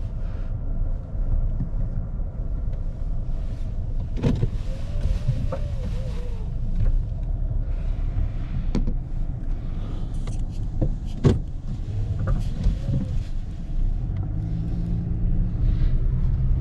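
Car driving, with a steady low rumble of engine and road noise heard from inside the cabin and a few sharp knocks or clicks.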